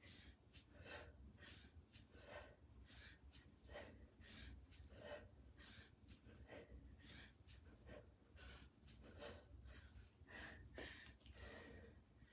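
Faint, rhythmic forced breathing of a person doing two-arm kettlebell swings: a short, sharp breath roughly every half second, in time with the swings.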